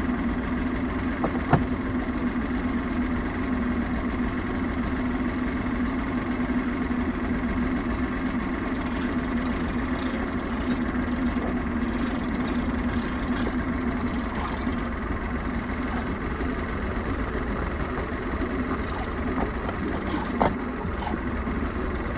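Boat motor running steadily at an even pitch, with a couple of brief knocks.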